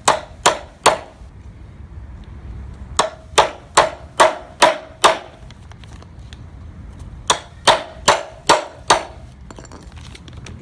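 Hammer striking a 1/8 inch roll pin punch, driving the roll pin out of a clutch slave cylinder: sharp metallic taps in three bursts (three, then about six, then about six), around two to three a second, each with a short ring.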